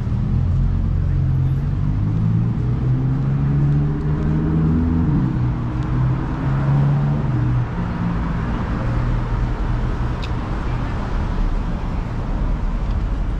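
Road traffic: a motor vehicle's engine running close by, its note shifting over the first several seconds, then settling into a steady traffic hum.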